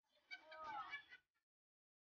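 A brief, faint call that rises and then falls in pitch, about half a second in, over near silence.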